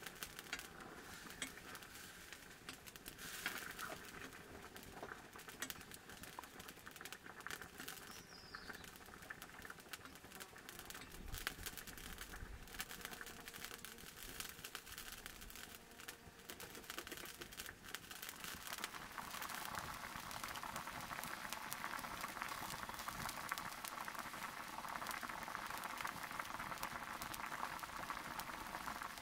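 Cooking over a wood fire: small crackles and pops throughout, joined about two-thirds of the way in by a steady, louder hiss of a pot coming to the boil.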